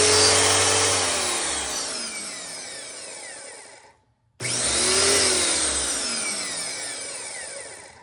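Greenworks electric pressure washer motor run twice by closing its pressure microswitch by hand. Each time it starts suddenly, then winds down with falling pitch over about three and a half seconds. It shows that the switch and motor circuit work electrically.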